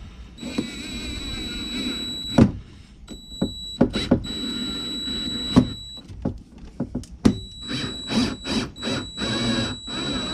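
Cordless DeWalt drill motor whining steadily in three runs of two to three seconds each, drilling screw holes for the heading sensor. Sharp knocks and clicks fall between the runs.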